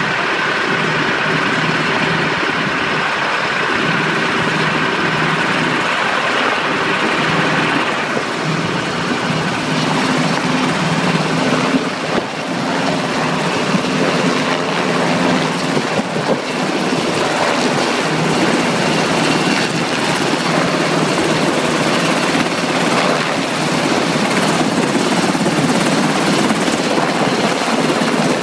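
Navy Seahawk helicopter's rotor blades and twin turbine engines running loud and steady as it hovers in close to land.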